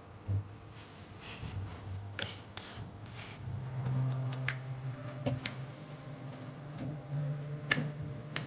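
Kitchen handling sounds: a series of short clicks and taps from utensils and cookware, over a low steady hum that grows louder about three and a half seconds in. The sharpest click comes near the end.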